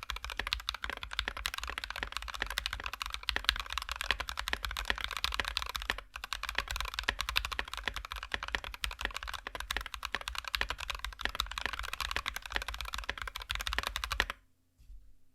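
Fast continuous typing on an NK65 Entry mechanical keyboard with lubed Alpaca linear switches and MT3 doubleshot ABS keycaps, a dense stream of thocky keystrokes. There is a brief pause about six seconds in, and the typing stops shortly before the end.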